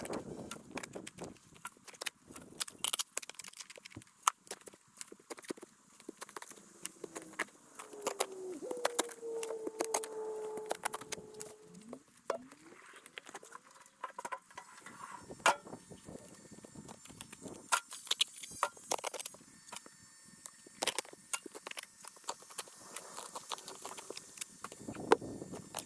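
Sped-up digging: a shovel working the ground in rapid, irregular clicks, knocks and scrapes.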